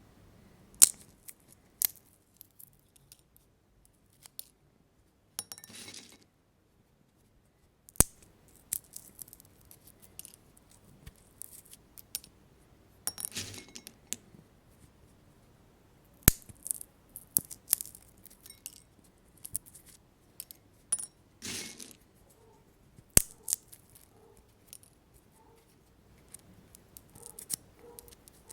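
Sunflower seeds being cracked open, the shells snapping in irregular sharp cracks, a few much louder than the rest, with small clinks and brief rustles of shells in a glass bowl between them.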